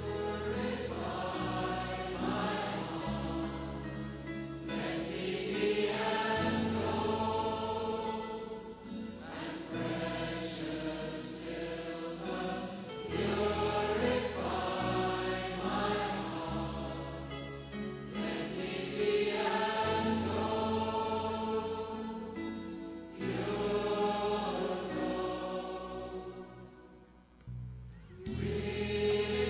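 Recorded choral music: a choir singing slow, sustained phrases over held low bass notes. It starts abruptly at the outset and briefly falls away near the end before picking up again.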